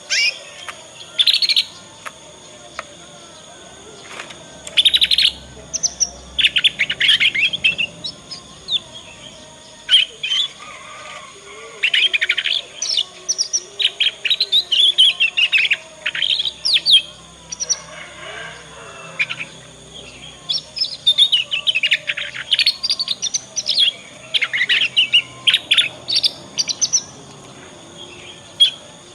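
Young domestic canary practising its juvenile 'ngriwik' twittering song: bursts of rapid, high chirps and trills broken by short pauses.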